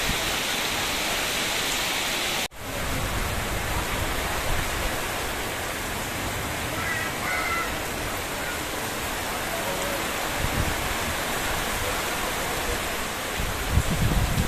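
Heavy rain falling steadily on a flooded street, an even hiss that cuts out for an instant about two and a half seconds in. Near the end a few low bumps, like wind buffeting the microphone, are the loudest thing.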